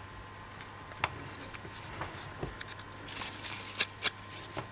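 Thin laser-cut MDF model pieces being handled and pushed into place by hand: a few light clicks and taps, three of them close together near the end, with some scraping and rustling of the wood.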